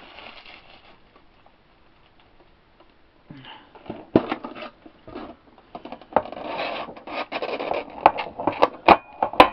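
Stiff plastic packaging of a Pokémon card tin being pried and torn open by hand. It starts about three seconds in, with crackling and scraping and a series of sharp snaps, the loudest near the end.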